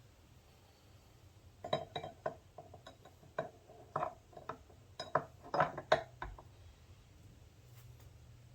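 Metal parts of a Peerless 206 transmission clinking and knocking together as they are handled and fitted during reassembly: a quick run of sharp clinks from about two seconds in to about six seconds in.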